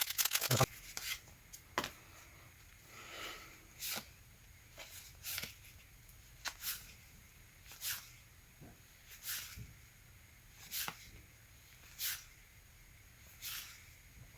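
Paper baseball cards being flipped through one at a time, each card giving a short, crisp flick or snap about every second and a half.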